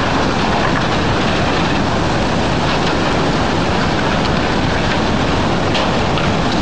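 Tsunami floodwater surging through a harbour, carrying debris: a loud, steady rushing noise with no let-up.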